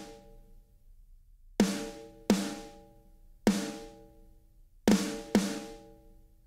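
Sample-replaced snare drum played back on its own: five separate hits of the same one-shot snare sample, triggered by Trigger 2 in REAPER, each a sharp crack that rings out with a tonal decay. The hits are spaced unevenly.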